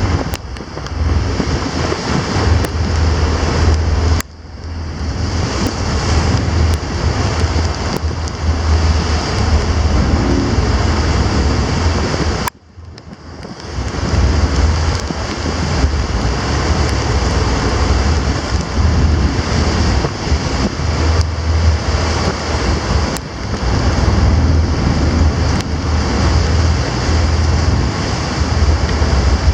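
Strong wind buffeting the microphone over the wash of rough sea, heard aboard a ferry moving slowly through storm swells. There is a heavy low rumble throughout, and the sound drops away sharply twice, about four seconds in and again near the middle.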